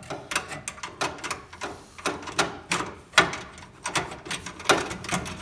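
Irregular metallic clicks and scrapes as a quarter midget's exhaust support shaft is worked into its chassis collar, a loose fit.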